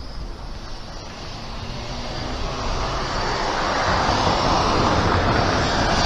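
A passing vehicle approaching, its running noise growing steadily louder from about two seconds in.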